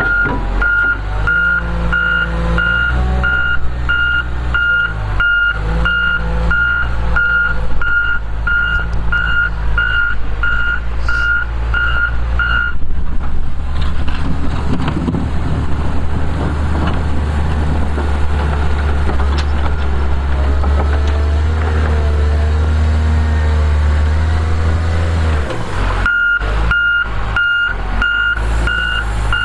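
Backup alarm of a heavy snow-clearing machine beeping steadily, about twice a second, over its running engine. About 13 seconds in the beeping stops and the engine runs louder and deeper as the machine pushes snow forward; near the end the beeping starts again as it backs up.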